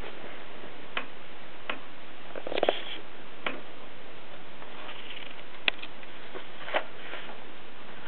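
A handful of irregular mechanical clicks and small knocks from a Groma Kolibri portable typewriter's platen and carriage parts as they are handled, over a steady hiss. The loudest comes as a short rattling cluster about two and a half seconds in, with another sharp click a little before six seconds.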